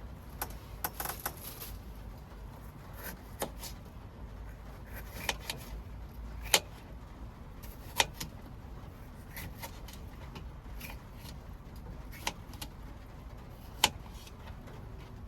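Scattered light clicks and knocks, a few of them sharp, over a steady low rumble: small hard objects being handled.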